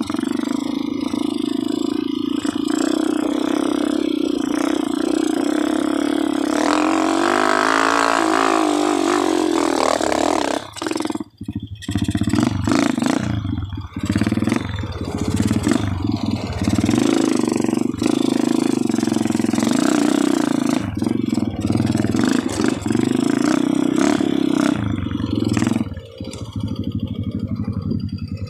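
Dirt bike engine running under changing throttle as it is ridden over a dirt trail, revving up about a third of the way in and briefly dropping off just after.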